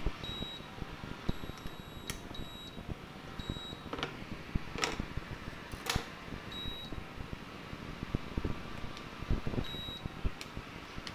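Induction cooker control-board buzzer giving about six short, high-pitched beeps at irregular intervals as its buttons are pressed one at a time to test which switches still work. A few sharp clicks from the board being handled and pressed come in between, over a steady background hum.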